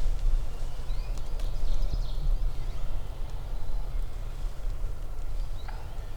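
Outdoor woodland ambience dominated by a steady low wind rumble on the microphone, with a few faint, short songbird chirps about a second in and again near the end.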